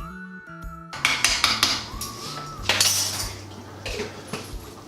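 Metal spoon clinking and scraping against a pot as a tablespoon of cocoa powder goes into chili, in several short knocks and scrapes.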